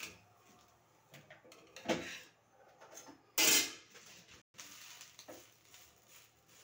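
A metal spatula, a non-stick frying pan and a steel plate clattering and scraping on a gas stove as slices of bread are flipped and moved between them: scattered knocks, a louder one about two seconds in, and the loudest, a short harsh clatter, about three and a half seconds in.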